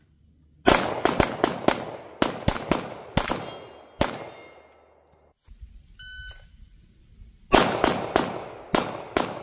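Rapid strings of pistol shots from a competition race-gun pistol: about a dozen quick shots over the first few seconds, then a shot-timer beep about six seconds in, followed by a second fast string of shots near the end.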